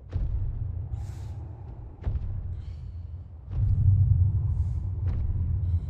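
Horror-film sound design: a deep low rumble with a heavy thud every couple of seconds, and faint hissy swishes between the thuds.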